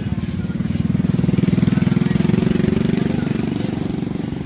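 Small motorbike engine running close by, its evenly pulsing beat growing louder to about halfway through and then easing off.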